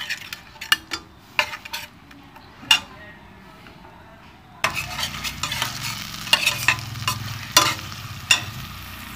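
A metal spatula scraping and clicking against a stainless steel pot while stirring a spice paste frying in oil. About halfway through, a steady sizzle of the frying masala rises under the scrapes.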